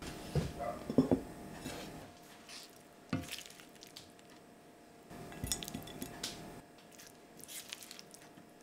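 Metal frying pan knocking on the table a few times, then a silicone spatula scraping the pan and scooping cooked chicken and vegetables, with light clinks.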